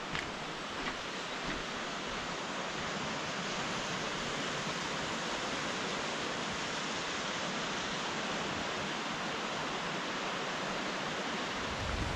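Fast-flowing river rapids rushing through a rocky gorge: a steady, even hiss of moving water.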